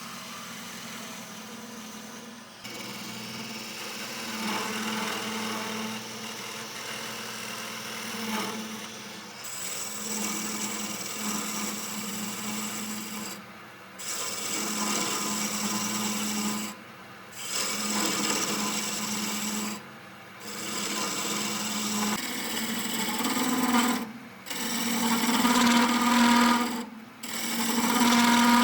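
Wood lathe running with a steady motor hum while a tool scrapes against the spinning red gum blank. The sound cuts out briefly about five times in the second half.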